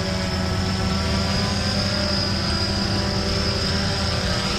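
Blade 350 QX3 quadcopter's four electric motors and propellers running at a steady hover, a constant hum with a steady high whine, heard from the GoPro mounted on the quad with fur over its microphones.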